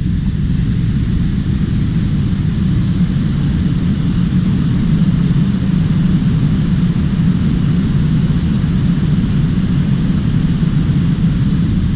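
Wind buffeting the microphone: a steady, loud low rumble with a fainter hiss above it.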